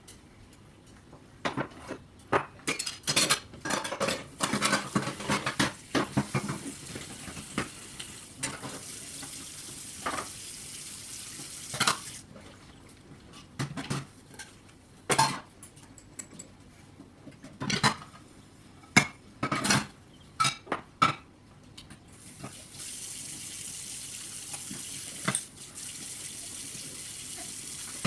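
Dishes and cutlery clinking and clattering at a kitchen sink, in many sharp knocks. A tap runs for about four seconds from eight seconds in, and again from about 22 seconds in.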